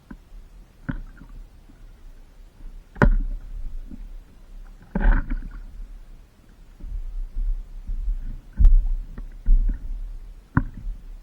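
Stand-up paddleboarding on open water: a low wind rumble on the microphone, four sharp knocks of paddle or board, and a brief splashing rush about five seconds in.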